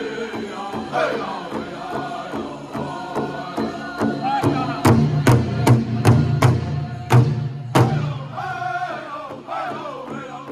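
Powwow drum group singing in unison while beating a large shared bass drum with drumsticks in a steady beat. For several beats around the middle the strikes come harder and louder, with a deep boom under the voices.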